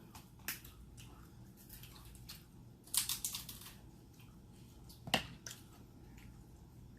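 Crab legs being cracked and pulled apart by hand: scattered sharp cracks and snaps, with a cluster about three seconds in and a single loud crack about five seconds in.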